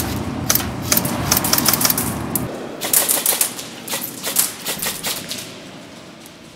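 Airsoft guns firing in several short strings of rapid clacking shots, with a low rumble underneath that stops about halfway through.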